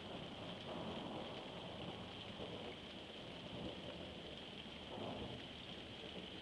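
Steady rain falling, with low rumbles of thunder swelling about a second in and again about five seconds in.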